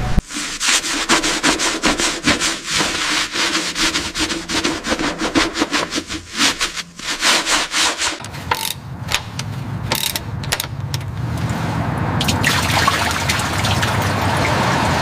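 Fast, repeated rubbing strokes on a surface, like hand sanding during bodywork. These give way about halfway through to a steadier hiss with a low hum beneath it.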